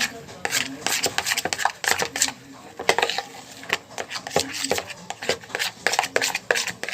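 A utensil stirring and scraping thick, fluffy slime in a bowl: a run of quick, irregular clicks and scrapes.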